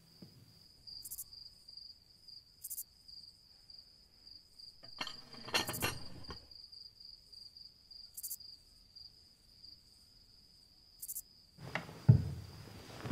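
A cricket chirps steadily in a high, pulsing trill. A brief rustling clatter comes about five seconds in, and a heavy low thump comes near the end.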